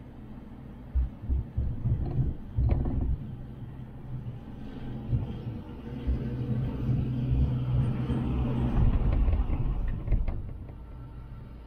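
Gondola cable car cabin rumbling as its haul-rope grip runs over a tower's sheave rollers: a few low thumps about a second in, then a low rumble with a steady hum that builds and dies away near the end.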